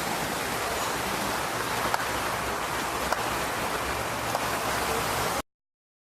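Steady rush of splashing fountain water, which cuts off abruptly to dead silence about five seconds in.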